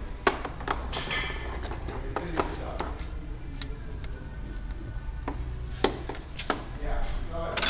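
Scattered metal clicks and light clinks as a hydraulic hose fitting is handled and threaded together by hand, over a low steady hum.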